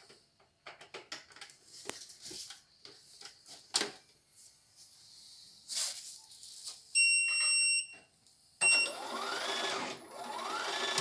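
Portable computerized embroidery machine being handled with scattered clicks and knocks, then beeping twice. After the second beep its motor and mechanism run with a whirr that rises in pitch twice.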